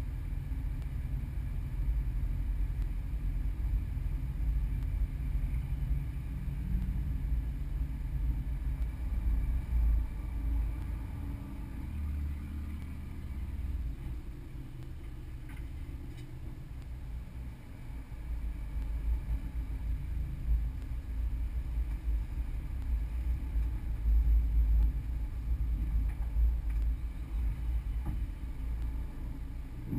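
Low rumble inside the cabin of a Subaru BRZ rolling at low speed: its 2.0-litre flat-four engine running gently, with road noise and some wind buffeting on the microphone. The rumble eases off for a while midway, then picks up again.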